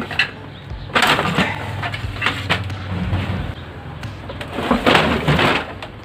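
The plastic paper tray of a Brother DCP-L2540DW laser printer is pulled out of the machine, scraping and clattering for a couple of seconds. A second short burst of plastic rattling and knocks follows near the end.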